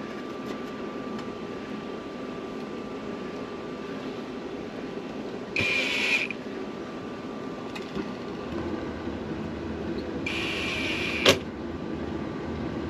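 Two short whirring bursts of a power screwdriver driving screws back into a propane furnace's cover, the first about half a second long and the second about a second, ending in a sharp click. A steady fan hum runs underneath.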